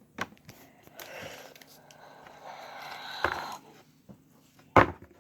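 Handling of slime containers and packaging: rustling and scraping, with two sharp knocks, the louder one near the end.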